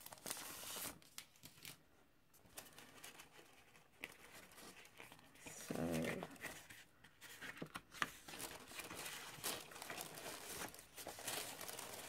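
Clear cellophane packaging crinkling and sheets of patterned craft paper rustling as a pack of 6x6 papers is slid out of its sleeve and handled, with many small crackles. A short pitched sound comes about six seconds in.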